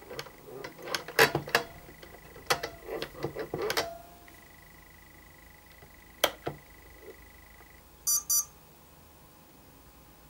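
Clicks and knocks from a hand working the sticks and switches of a Spektrum DX6i radio transmitter, mostly in the first four seconds with one more near the middle, then a quick double electronic beep about eight seconds in. A faint steady high whine sounds underneath for much of the time.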